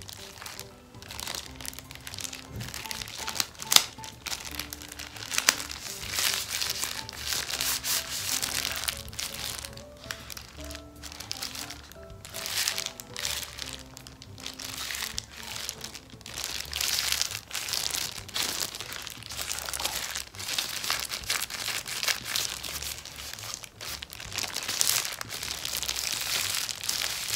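Thin hand-mask pack gloves crinkling as gloved hands rub and flex them close to the microphone, over quiet background music.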